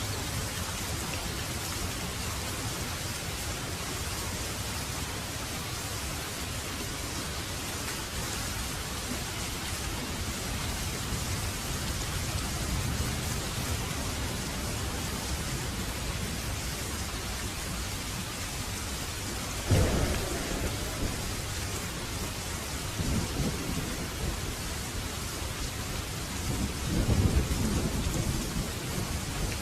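Steady rain falling. About two-thirds of the way through comes a sharp thunderclap, followed by rolls of thunder, the loudest near the end.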